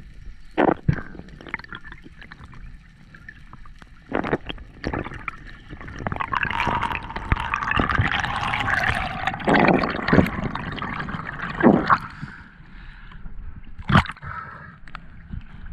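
Underwater water sound picked up by a diving camera: bubbling and gurgling, with a louder rush of bubbles through the middle and several sharp knocks scattered through it.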